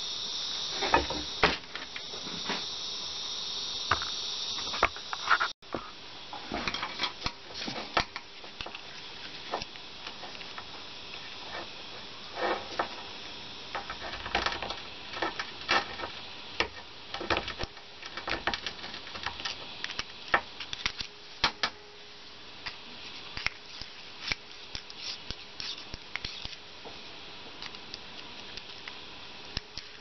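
A small screwdriver scraping and clicking around the inside of a steel reusable hydraulic hose fitting socket, clearing out leftover rubber from the old hose: many short irregular scrapes and ticks. A steady hiss fills the first few seconds and cuts off suddenly.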